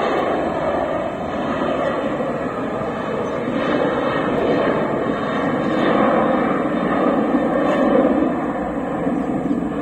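Jet engines of a SpiceJet Boeing 737 airliner running as it moves along the runway, heard from a distance as a steady rushing noise. The noise grows a little louder around six to eight seconds in.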